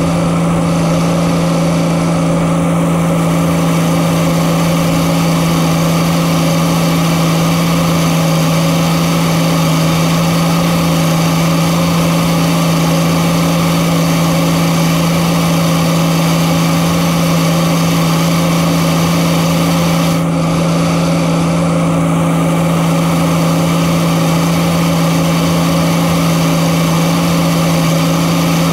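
Diesel engine of a Case earthmoving machine running steadily at one constant pitch, heard up close from the operator's seat.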